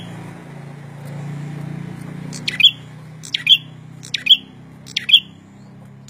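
Caged prenjak songbird calling: four loud, sharp chirps in a row, a little under a second apart, starting about halfway in. A steady low hum runs underneath.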